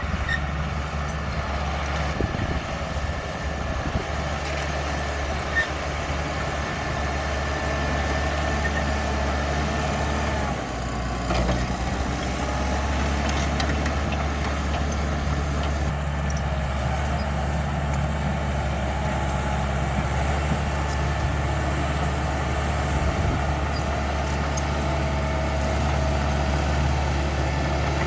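CAT D5K XL bulldozer's diesel engine running steadily while the machine works, with a brief change in its note about ten seconds in and a few short knocks.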